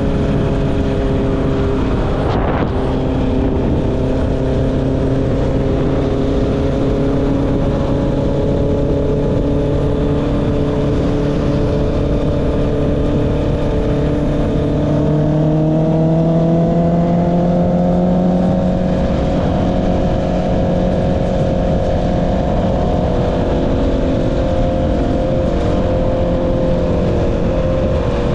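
Honda CB650R's inline-four engine through an Akrapovic exhaust, running at a steady cruise while riding; its pitch rises a little about halfway through and then holds. A short click comes a couple of seconds in.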